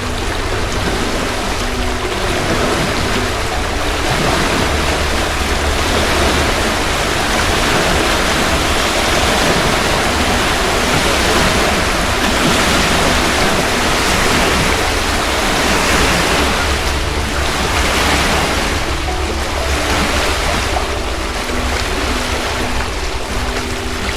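Loud, steady rush of water, swelling and easing every couple of seconds, with a deep rumble underneath.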